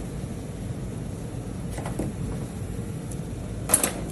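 Steady low background hum, with a faint knock about two seconds in and a short, sharp clatter near the end.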